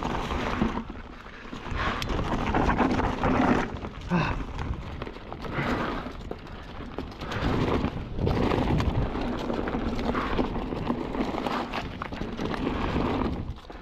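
Kellys Swag 50 full-suspension mountain bike descending a rough, rocky trail: tyres crunching over stones and loose dirt, the bike clattering and rattling at every bump, with a steady low rush of wind on the microphone.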